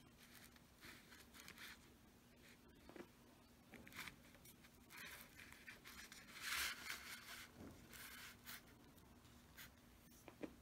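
Faint rustling and rubbing of plastic packaging as a clear plastic tube of pigment samples is handled and turned over, with a louder crinkle about six and a half seconds in. A faint steady hum runs underneath.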